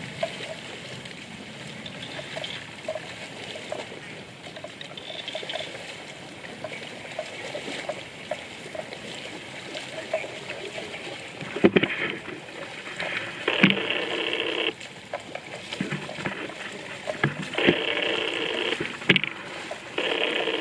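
Water buffalo wading and grazing in shallow floodwater: water sloshing and trickling around their legs and muzzles. About halfway through come sharp splashes and several louder bursts of about a second each.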